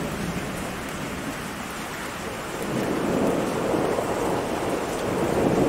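Steady heavy rain with rolling thunder. The rumble swells up about halfway through and grows louder toward the end.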